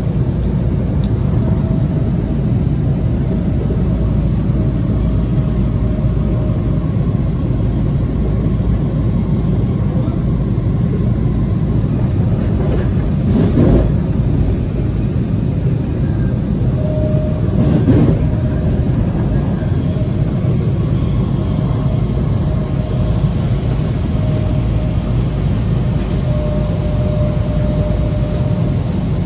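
Washington Metro train running at speed, heard from inside the car: a steady, loud rumble of wheels and running gear. A faint steady whine comes and goes, and there are two brief louder swells about halfway through.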